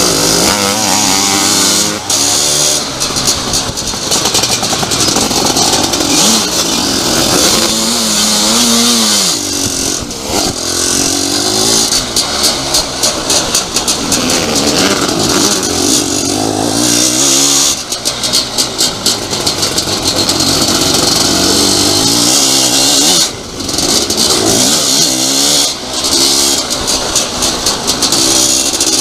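Onboard sound of a sidecar motocross outfit racing: its engine revving up and falling back again and again as the throttle is worked, with heavy wind rush on the microphone and short knocks and rattles from the rough track. The throttle is briefly shut off several times, most clearly a little after the middle.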